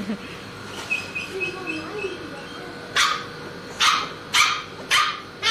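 Labrador puppy yelping in short, sharp barks, four times in the second half, a frightened puppy being held still for a vaccination injection. A faint row of short high peeps comes about a second in.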